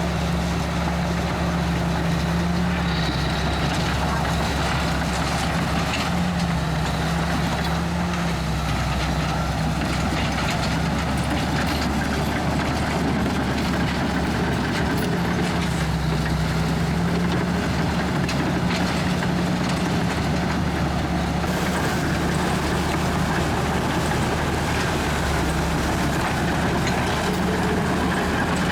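Komatsu D61EX bulldozer's diesel engine running steadily under work, its pitch rising and falling slightly every few seconds.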